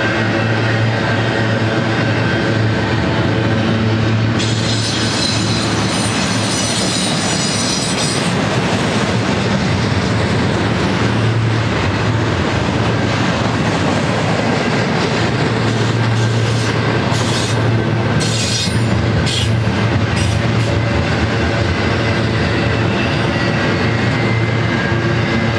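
Double-stack intermodal well cars rolling past with a steady rumble of wheels on rail and some clickety-clack. A high-pitched wheel squeal comes in about four and a half seconds in and lasts a few seconds, and shorter squeals follow later on.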